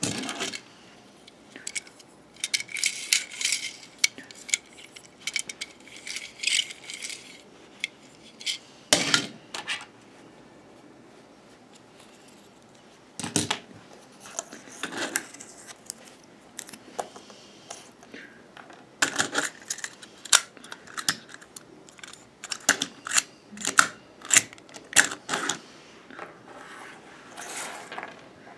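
Plastic toy pieces clicking and rattling as they are handled, in quick clusters of sharp taps with a quieter pause about halfway through.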